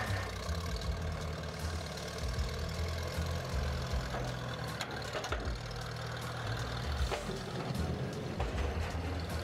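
International Harvester 300 Utility tractor's four-cylinder engine running at low speed as the tractor drives down a trailer's ramps, with a few sharp knocks along the way.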